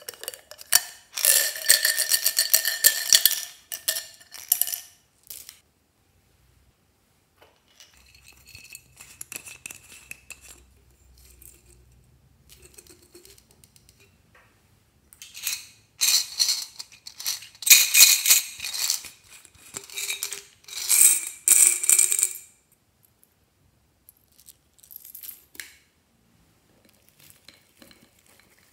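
Small hard pieces rattling and clattering against a container with a ringing tone, in two long bursts: one at the start and a louder one past the middle, with scattered faint clicks between.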